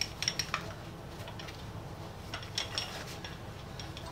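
Light metallic clicks and taps from handling a Miller Falls No. 120 hand-cranked breast drill: a quick run of clicks at the start and another cluster about two and a half seconds in, over a faint low hum.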